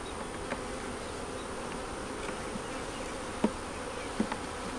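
Honey bees buzzing steadily around an open hive during a frame inspection, with a few faint clicks.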